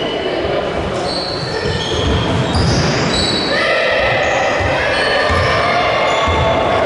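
Basketball game on a gym court: sneakers squeaking on the hardwood in many short high-pitched chirps, thickest from about halfway in, over the thud of a dribbled ball and a general murmur of voices in the hall.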